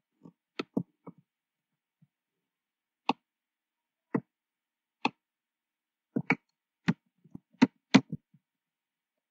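Computer keyboard keystrokes and mouse clicks, single sharp clicks about a second apart, then a quicker run of keystrokes a little past the middle.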